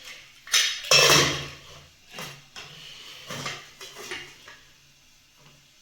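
Kitchen utensils and pots clattering: a loud metallic clatter about a second in, then several smaller knocks.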